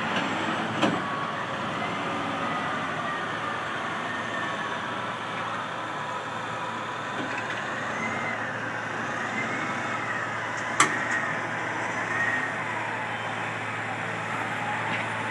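Diesel engines of heavy earthmoving machines, wheel tractor scrapers and a bulldozer, running under work, with a whine that rises and falls in pitch. Two sharp knocks cut through, one about a second in and a louder one later on.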